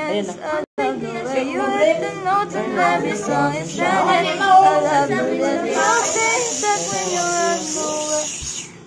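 Unaccompanied singing voices, the pitch wavering from note to note, broken by a brief gap under a second in. A steady hiss joins for the last three seconds.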